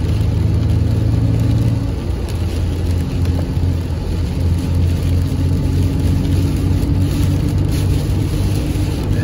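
Toyota Tacoma driving on a wet road, heard from inside the cab: a steady low engine and tyre drone whose engine note changes about two seconds in.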